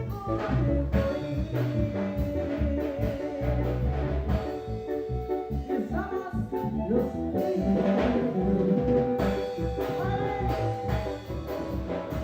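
A live band playing a song with drums and brass, and a voice singing over it.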